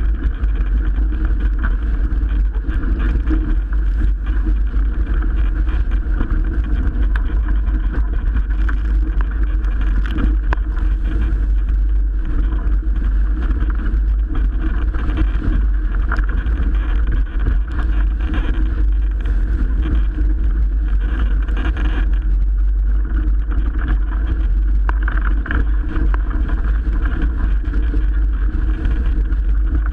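Steady wind rumble on the microphone mixed with water rushing past the hull of a Melges 24 sailboat surfing waves in 30-knot-plus winds.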